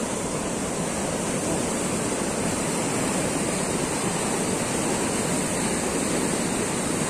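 Whitewater rushing and churning down a concrete artificial kayak slalom channel, a steady loud rush of noise. The river's main flow has been diverted into the channel to make the current strong.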